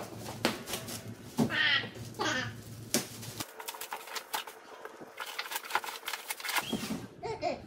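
Clear plastic shipping wrap crinkling and crackling as it is pulled and torn off a kayak, a steady run of sharp crackles.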